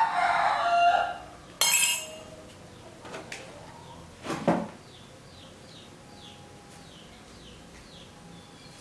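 A metal spoon clinking against crockery. Ringing clinks come first, then a sharp knock about a second and a half in and a few lighter taps.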